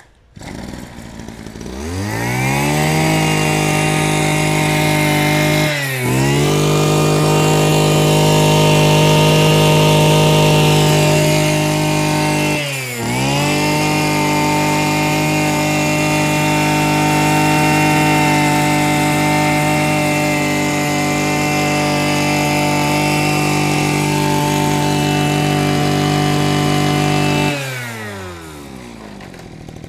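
Mitsubishi TL33 brush cutter's 33 cc two-stroke engine revving up to a high, steady full-throttle whine about a second and a half in. It dips briefly twice, near 6 and 13 seconds, as the throttle is let off and opened again, then drops back to idle near the end.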